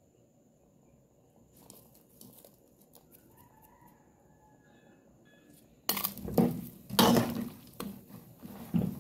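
A metal spoon stirring and scraping through porridge in a metal cooking pot, with clattering knocks against the pot. It starts suddenly in the last third, after a quiet stretch.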